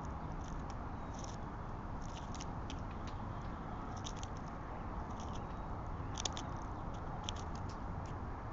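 Irregular short crisp clicks and crunches of a small animal eating at close range, gnawing or cracking nuts or seeds, over a steady low background rumble.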